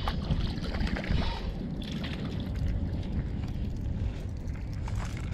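A hooked fish splashing at the water's edge as it is reeled in and pulled onto the sand, over a steady rumble of wind on the microphone.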